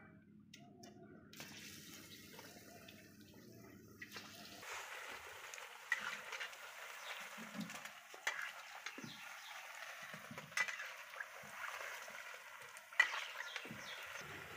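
Cauliflower pakoras deep-frying in hot oil in an iron kadai: a steady sizzling hiss with crackles and sharp pops, which starts about five seconds in. Before it, only a low rumble.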